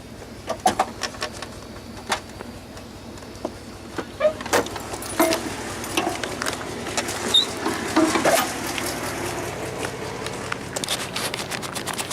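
Irregular clicks, taps and knocks of something being handled, over a faint steady low hum.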